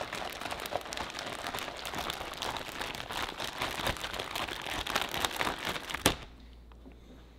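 Plastic zip-top bag crinkling as it is kneaded by hand to mix marinade through the meat inside, with a single sharp knock about six seconds in, after which it goes much quieter.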